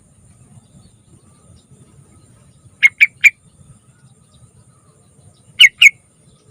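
Sooty-headed bulbul (trucukan) calling: three short, sharp notes in quick succession about three seconds in, then two more near the end.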